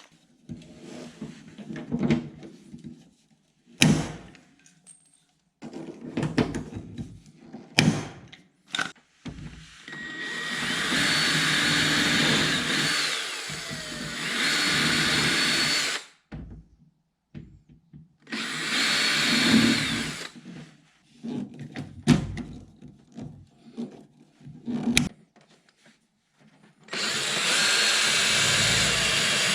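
Power drill running in three bursts of a few seconds each, with a steady high whine. Short clicks and knocks of handling come between the bursts.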